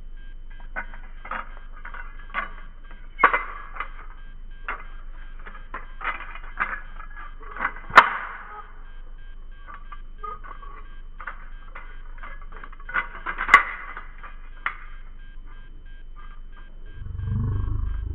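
Butterfly knife (balisong) being flipped: its handles and blade clicking and clacking against each other in an irregular run, with a few louder snaps, the loudest about eight seconds in.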